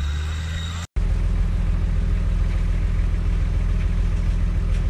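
Four-wheel-drive vehicle's engine running with a steady low drone, cut off for a split second about a second in, then carrying on steadily.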